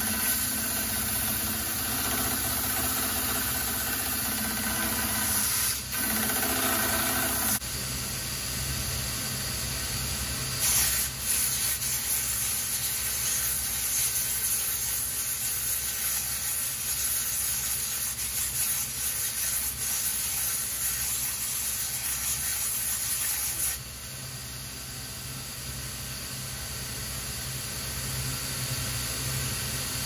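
Electric belt sander running steadily, its motor humming under the hissing grind of the abrasive belt on a wooden oak axe handle. The sound drops quieter near the end.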